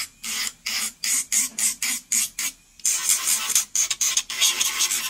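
Electric nail drill (e-file) buffing the shine off a practice hand's nail in short, irregular strokes. Each touch of the bit on the nail gives a brief grinding hiss, about two a second, with short gaps between.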